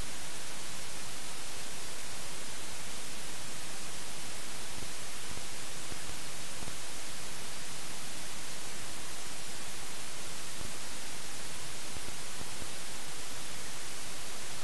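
Steady, even static hiss with no other sound in it: the dead audio track of a faulty helmet camera.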